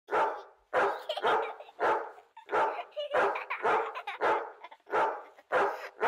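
A dog barking repeatedly: about ten barks at a steady pace, roughly one every half second or so.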